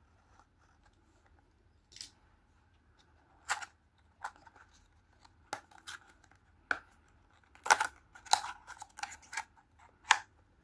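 A utility knife scrapes through the security tape seal of a small cardboard box, and the seal's paper tab is then torn loose and the flap pulled open. The sound is a series of short, scratchy scrapes and rips, a second or more apart at first and closer together in the second half.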